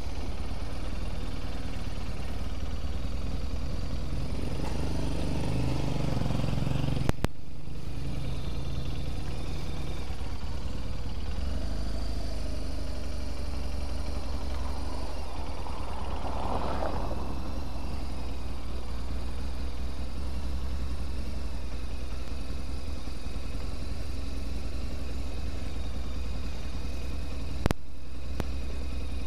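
Motorcycle engine running at low speed on a cobbled street, over a steady low rumble, swelling briefly a few seconds in. Two sharp clicks, one about seven seconds in and one near the end.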